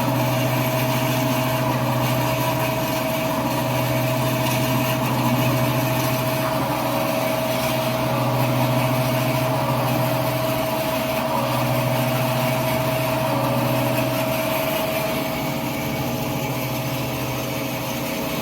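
Band saw cutting machine for toilet-paper and kitchen-towel rolls running steadily. It makes a constant hum with a steady tone over it, and the low hum swells and eases every few seconds.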